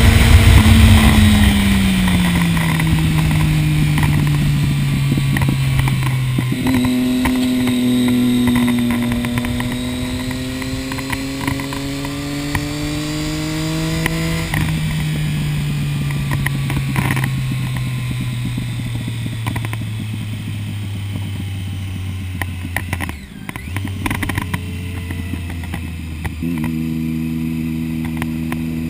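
Motorcycle engine at speed, heard from the rider's position over wind rush. The engine note falls as the bike slows at first, jumps up about six seconds in and climbs steadily under acceleration, drops sharply at a gear change about halfway through, then slowly falls away before jumping up again near the end.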